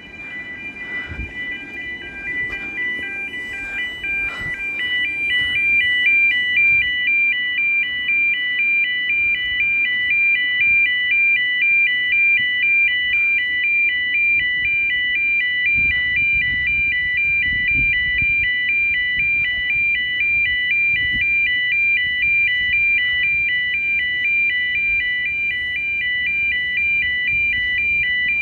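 E2S level crossing warning alarm sounding a repeating alternating two-tone warble. It grows louder over the first few seconds, then holds steady. The uploader calls the alarm dodgy.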